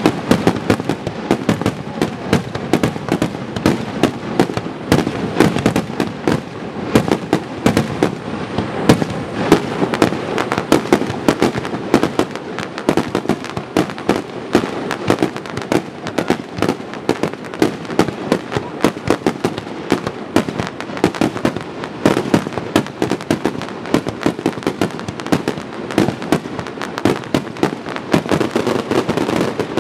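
Fireworks in a rapid-fire barrage: many aerial shells bursting and crackling at once, a dense stream of sharp bangs several to the second with no letup.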